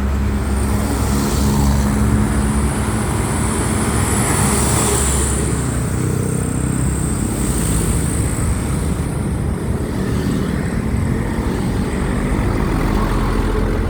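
Steady motor-vehicle engine drone with traffic noise, and a faint high hiss in the first half.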